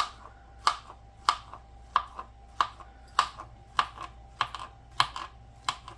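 Kitchen knife chopping a banana into slices, the blade knocking on a plastic cutting board in a steady rhythm of about ten cuts, a little under two a second.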